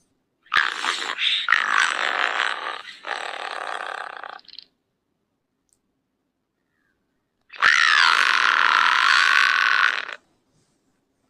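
Baby spinosaurus sound-effect cries, twice. The first lasts about four seconds and comes in several pulses. After a few seconds of dead silence comes a second of about two and a half seconds, whose pitch falls and then wavers.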